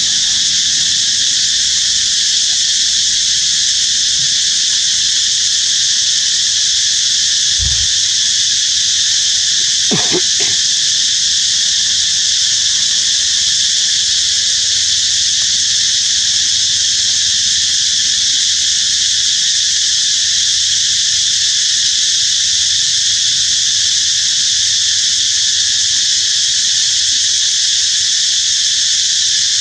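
Loud, steady chorus of insects, pitched high and unbroken, with a brief low thump about eight seconds in.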